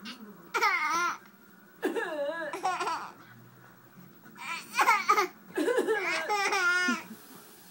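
A young child laughing in high-pitched bursts, three spells of giggling with quiet gaps between.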